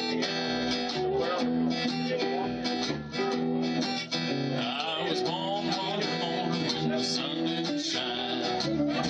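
Solo acoustic guitar strummed steadily in an instrumental break between sung choruses of a country song.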